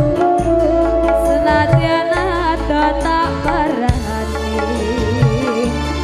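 A Javanese sinden singing into a microphone, holding long wavering notes, over hand drums and band accompaniment, loud through a PA sound system.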